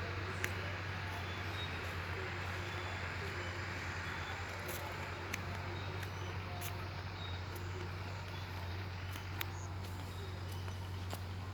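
Steady low hum of a distant engine running at a constant pace, with a few faint clicks over the outdoor background.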